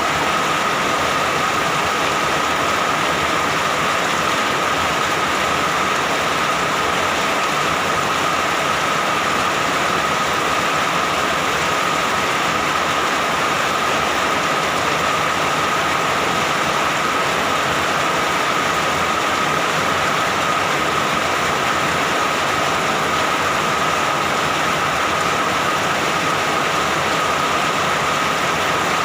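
Steady rain falling, an even unbroken hiss with a faint steady tone running through it.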